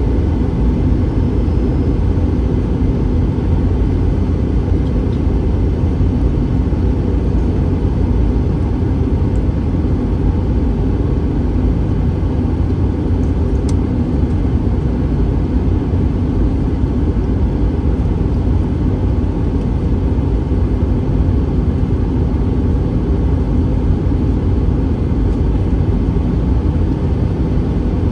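Steady low rumble inside the cabin of an Airbus A321 airliner, the engine and airflow noise heard from a window seat, unbroken and without change.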